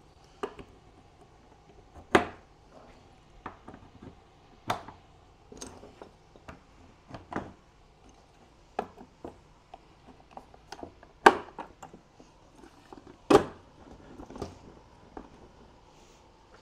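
Irregular clicks and knocks of metal caster wheels being handled and set into a hardwood cabinet door on a wooden workbench, with the sharpest knocks about two seconds in and twice more near the end.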